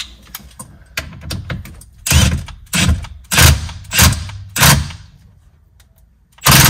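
Cordless impact driver tightening a Saab 9-3's steering-wheel centre bolt onto the steering shaft, run in five short bursts about half a second apart, then again in one burst at the very end.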